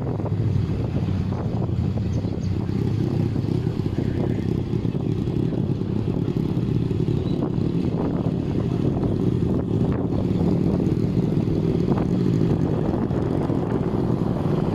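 Motorcycle engine of a tricycle (motorcycle with sidecar) running steadily under way, heard from the sidecar along with road noise.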